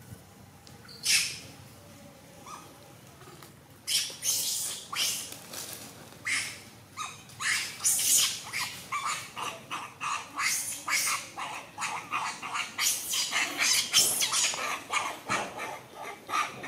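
Macaques screaming during a fight: one sharp call about a second in, then from about four seconds on a rapid run of harsh screams, two or three a second.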